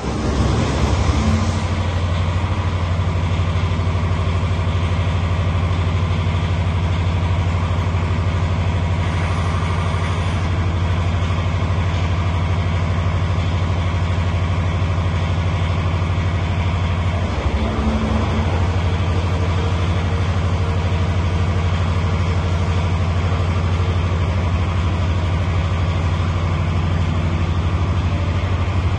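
Diesel generator engine of a Trime X-Tower light tower catching right at the start and then running steadily with a low, even hum.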